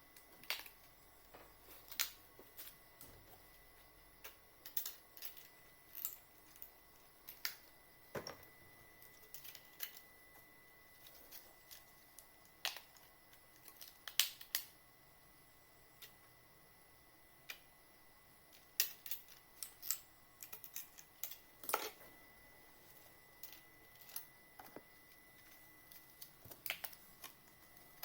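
Irregular small clicks and taps of computer hardware being handled during desktop PC assembly, with a denser cluster of clicks around the middle and again near the end.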